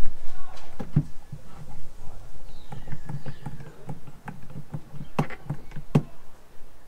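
Knocks, taps and clicks from the newly fitted top-hung wooden window frame being pushed open and handled from inside the truck body, with a quick run of sharper knocks about five seconds in.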